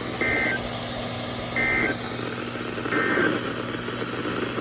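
Emergency Alert System end-of-message (EOM) data bursts on NOAA Weather Radio: three short two-tone digital warbles about a second apart, over steady radio hiss and a low hum. The EOM marks the end of the broadcast severe thunderstorm warning.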